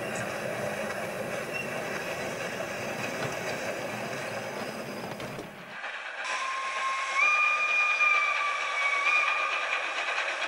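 Steam train running with a steady rumbling hiss, then after a sudden break a steam locomotive whistle blows one long two-tone note, stepping up slightly in pitch partway through, over a lighter hiss of the moving train.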